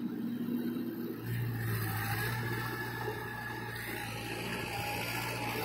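Mahindra 475 DI tractor's diesel engine running steadily as the tractor works through paddy-field mud. The low hum grows a little louder a bit over a second in.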